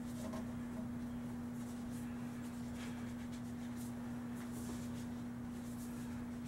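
A steady low hum on one pitch, with faint scratching and rustling of plastic zip ties being handled and threaded onto the walker's metal frame, a little more around the middle and near the end.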